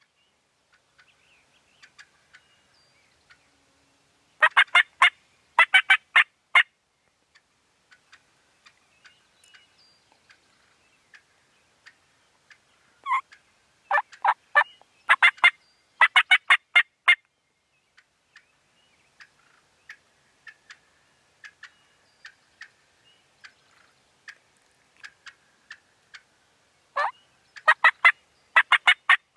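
Wild turkey calling in loud bursts of rapid, rattling notes, each burst about a second long. They come twice about four seconds in, as a longer run of several bursts in the middle, and again near the end. Faint small-bird chirps fill the gaps.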